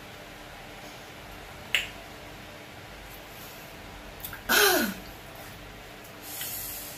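A single sharp click nearly two seconds in, then a short, loud groan whose pitch falls steeply, a grimacing reaction to the bitter taste of the bitters just swallowed, and a breathy exhale near the end.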